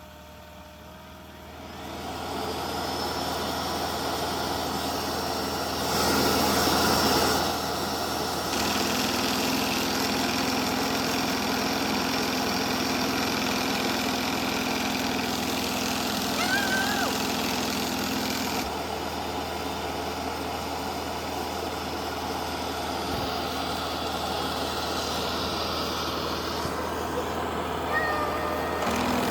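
EZVIZ RE5 Plus robot vacuum running its main-brush self-cleaning cycle at the dock: the motor starts up about two seconds in and runs loud and steady. It is louder for a stretch around six to seven seconds, and there are a couple of short high squeaks.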